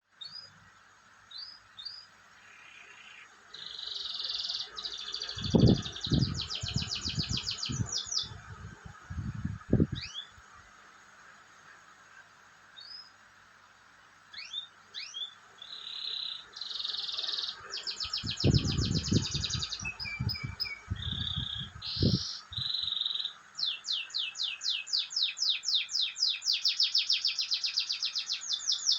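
Domestic canary singing a long, varied song of buzzy rolls, single chirps and fast trills, ending in a rapid run of repeated notes about six a second. Two clusters of loud low thumps sound under the song, around six to ten seconds in and again around nineteen to twenty-two seconds in.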